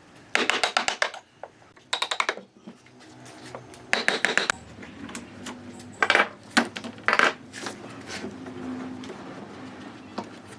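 Sharp knocks and clinks in short, rapid clusters, several strikes at a time, with pauses between the clusters.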